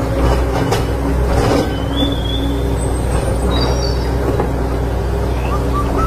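Heavy-machinery engine running steadily with a low, even drone, while a toy excavator digs sand. A few short high chirps are heard over it.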